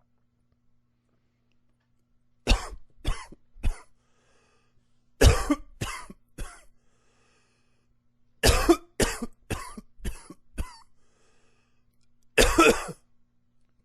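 A man coughing in four fits, each of several sharp coughs about half a second apart, with faint breaths between the fits. A shorter, denser burst comes near the end.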